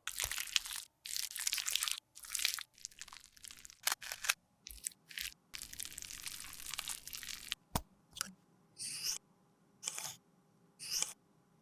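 A series of close-up crunching and scraping sounds with abrupt cuts between them: makeup, such as pressed powder and lipstick, being crushed, cut and mixed. The bursts grow shorter and more spaced out near the end.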